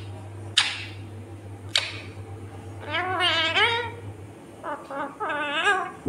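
Indian ringneck parakeet vocalising: two short, sharp high screeches about a second apart, then a longer wavering call around the middle and two more wavering calls near the end.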